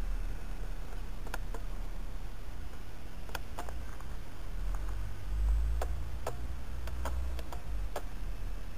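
Low wind rumble on the microphone, with a dozen or so irregular sharp clicks scattered through it.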